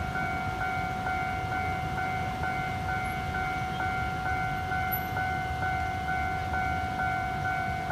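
Taiwanese railway level-crossing warning bell ringing, an electronic ding repeating about twice a second over a low rumble.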